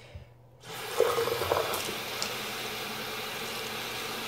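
Water from a bathroom sink faucet starts running into an empty plastic water bottle less than a second in, filling it with a steady pouring sound.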